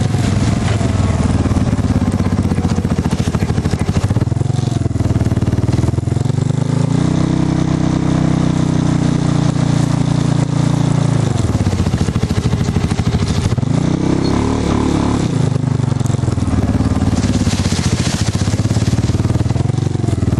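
Off-road vehicle engine running under way across rough ground. Its pitch climbs about a third of the way in, holds for a few seconds, then drops, with another quick rise and fall a little past the middle.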